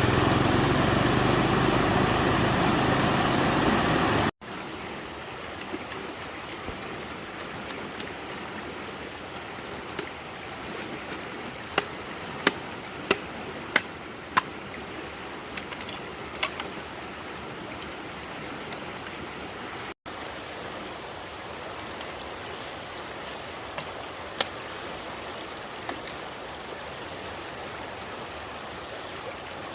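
Steady rushing of water, loud for the first few seconds, then after a cut quieter, with scattered sharp ticks and taps.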